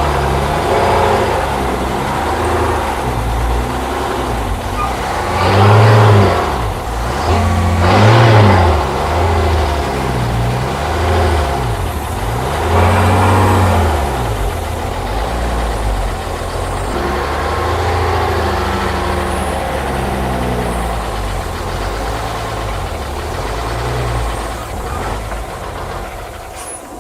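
Chevrolet Kodiak log truck's engine running under load as the truck is driven, revving up and dropping back several times in the first half, then running more steadily.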